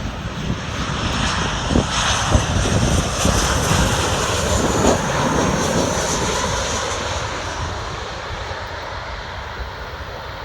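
Airplane passing low overhead as it comes in to land, a loud engine roar that builds to its peak a few seconds in and then slowly fades away.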